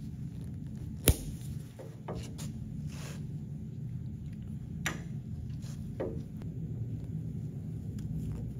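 Small clicks and taps of a car lift's hydraulic cylinder piston and its seals being handled with gloved hands, with one sharp click about a second in and a few fainter ones later, over a steady low hum.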